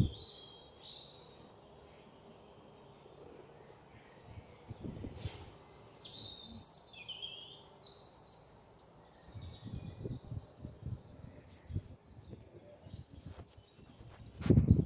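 Wild birds chirping and calling in short, repeated phrases, with a few low thuds of handling and a louder clatter of knocks right at the end.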